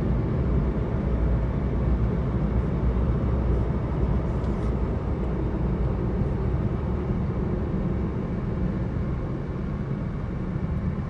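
Steady engine and road noise inside a moving car's cabin, a low hum with tyre hiss, easing slightly near the end.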